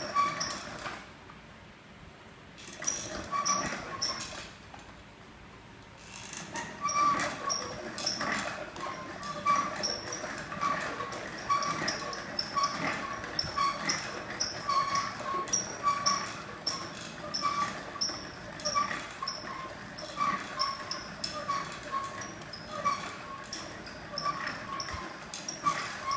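Wooden silk-reeling frame squeaking rhythmically, about two squeaks a second, as silk filament is wound up from cocoons in hot water. The squeaking pauses for a few seconds soon after the start, then runs on steadily.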